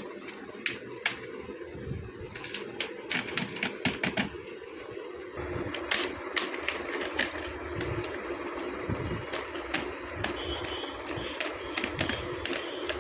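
Packaging being handled and opened by hand, with irregular sharp crinkles and clicks over a steady low hum.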